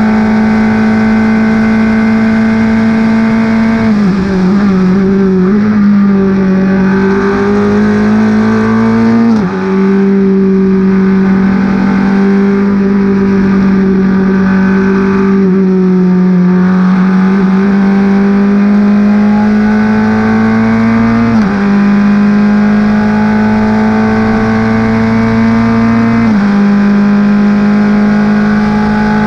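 Formula 4 race car's Honda four-cylinder engine heard onboard at full throttle. Its pitch falls as the car brakes and downshifts about four seconds in, then it accelerates through the gears, the pitch dropping at each upshift about 9, 21 and 26 seconds in.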